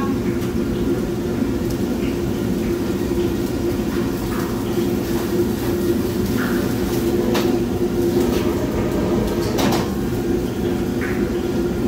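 Steady mechanical roar with a constant hum from a commercial kitchen's exhaust hood fan and gas range burners, with a few short clinks of cookware, one about seven seconds in and another near ten seconds.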